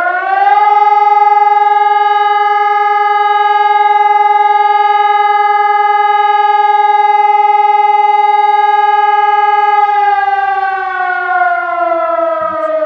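Civil-defence warning siren sounding loudly during a test alarm: its pitch finishes rising in the first second, holds one steady tone, then begins to fall about ten seconds in as it winds down.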